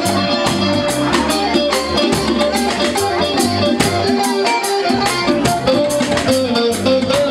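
Live band playing: electric guitar and bass guitar over a drum kit keeping a steady beat.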